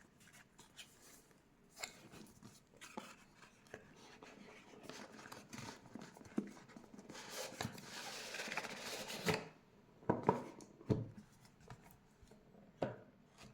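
Packaging being handled by hand during an unboxing: scattered light clicks and knocks, then a stretch of rubbing and sliding that cuts off suddenly a little after nine seconds, followed by a few sharper knocks.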